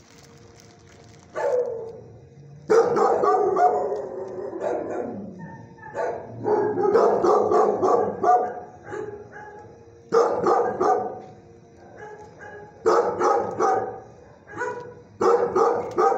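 Dogs barking in a shelter kennel, in about six bouts of rapid repeated barks with short pauses between them.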